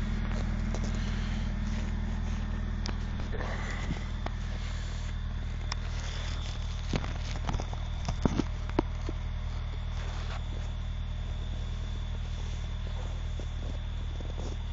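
Vehicle engine idling steadily with a low, even hum shortly after a long-cranking cold start in sub-zero cold. A few sharp clicks sound about halfway through.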